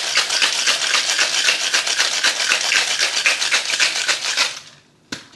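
Ice rattling hard inside a Boston shaker, a stainless tin capped on a pint glass, as a cocktail is shaken; the rapid rattle stops about four and a half seconds in, followed by a single sharp knock.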